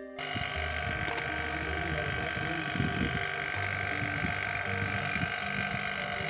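Refrigeration vacuum pump running steadily as it evacuates the air-conditioner's refrigerant lines, with an uneven low rumble about halfway through.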